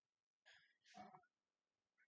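Near silence, with a person's faint breath from about half a second to just over a second in.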